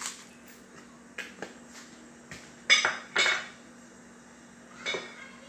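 Kitchen items being handled and set down on a counter: a few small clicks, then two loud knocks with a clattery ring about three seconds in and a lighter knock near the end, over a faint steady hum.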